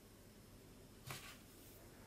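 Near silence: room tone, with one faint, short handling noise about a second in.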